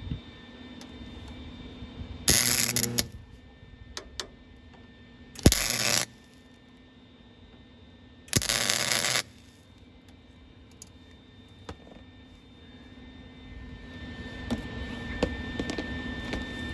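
Welder laying three short crackling bursts of weld, each under a second, to fill a seized hinge bolt's hole and fuse a nut onto it so the bolt can be turned out.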